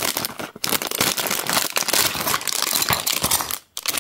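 Thin plastic parts bag crinkling and rustling as it is handled and opened, with a brief break about half a second in and a short pause near the end.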